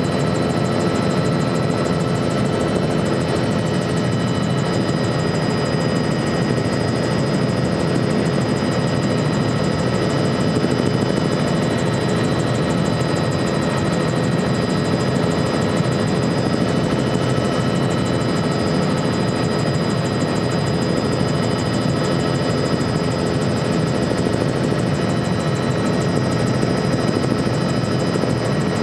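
A helicopter in steady cruising flight, heard from inside the cabin: a constant dense rumble of rotor and engine, with steady high whining tones on top.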